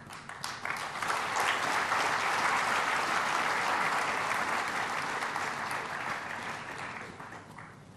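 Audience applauding. The clapping builds over the first second, holds steady, then fades away near the end.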